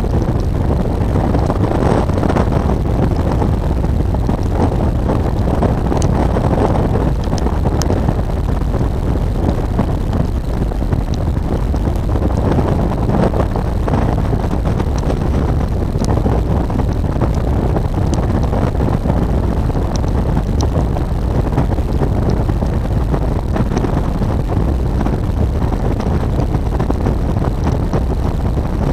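Steady rush of wind on the microphone of a motorcycle riding at speed, mixed with the bike's running noise, heaviest in the low end and unbroken throughout.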